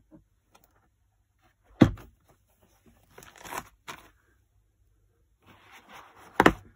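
Hard plastic Flambeau pistol case being opened. A sharp snap of a latch comes about two seconds in, then the lid and foam lining rustle. A second sharp snap near the end is the loudest sound.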